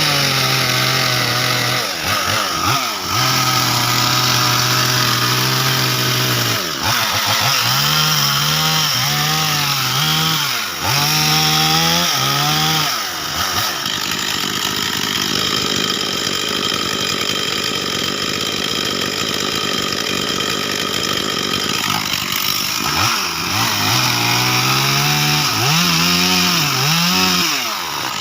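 Chainsaw engine running through a tree cut, revving up and dropping back again and again, with steadier stretches at constant speed in between.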